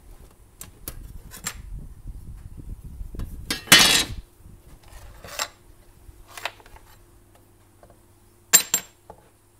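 A thin metal base plate from a small coffee maker clattering as it is set down on a wooden workbench a bit under four seconds in, amid plastic housing being handled. A few lighter knocks follow, then two quick sharp clicks near the end.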